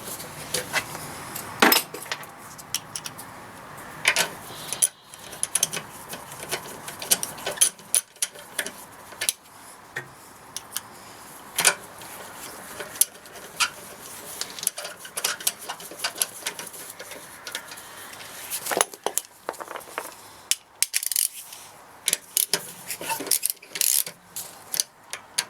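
Irregular sharp metallic clicks and clinks of hand tools and brake parts being handled while working on a car's rear brake.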